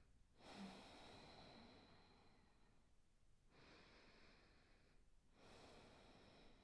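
Faint, slow breathing close to the microphone: three long, soft breaths with short pauses between them.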